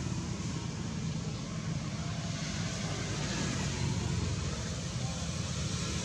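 Steady low rumbling outdoor background noise with no distinct events; no monkey calls stand out.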